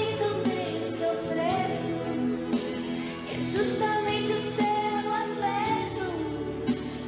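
A woman singing a pop song live into a microphone, her voice gliding over sustained instrumental accompaniment.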